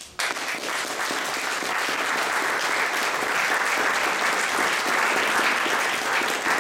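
Audience applauding, starting all at once just after the start and keeping up steadily.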